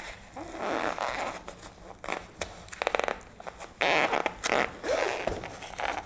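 Packing tape being ripped off a cardboard shipping box in quick tearing pulls, with the cardboard scraping and rustling as the box is handled and tipped over.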